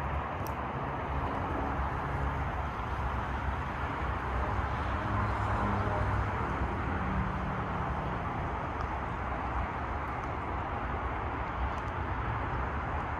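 Steady outdoor background noise with a low rumble underneath, as of distant traffic and air moving over the microphone; no single event stands out.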